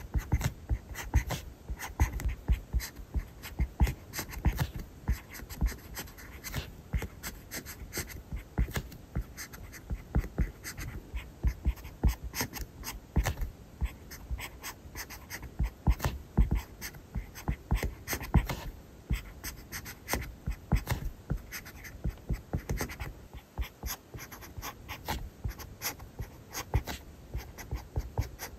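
Pen nib scratching on paper in quick, irregular handwriting strokes.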